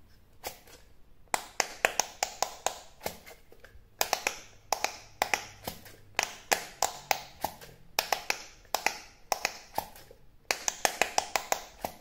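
Thumbs pressing the silicone push buttons of a handheld Quick Push electronic pop-it game, giving sharp clicks in quick runs of several a second, broken by short pauses.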